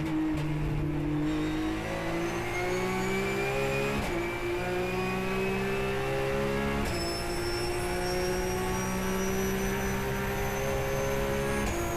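Porsche Carrera Cup race car's flat-six engine heard from the cockpit, accelerating hard with the pitch rising through each gear. Quick upshifts come about four and seven seconds in. Near the end the revs drop suddenly as the throttle comes off.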